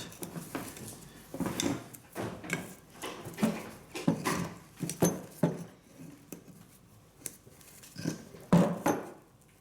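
Irregular knocks and clinks of tools and small hardware being handled and set down on a hard surface, with one louder knock near the end.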